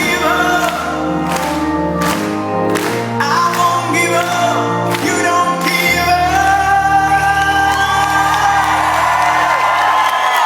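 Live rock band and lead singer in a large hall, playing the closing bars of a song. From about six seconds in, the band holds a final chord under a sustained vocal, which cuts off just before the end.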